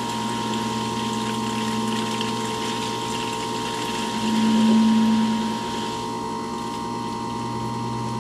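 Reverse-cycle marine air conditioner running on cooling with its raw-water pump drawing antifreeze up a hose from a jug to winterize the system. A steady mechanical hum that swells briefly about four seconds in.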